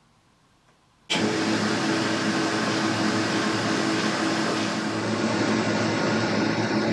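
Boxford lathe starting abruptly about a second in, then running steadily: a motor hum with the spindle turning the chuck.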